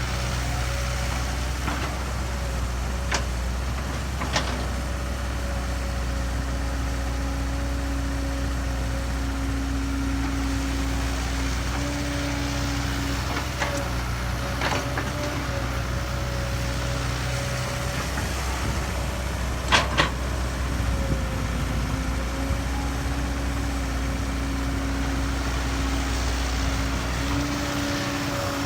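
Diesel engine of a working excavator running steadily, with a low hum and a steady whine. A few sharp knocks sound over it, the loudest about twenty seconds in.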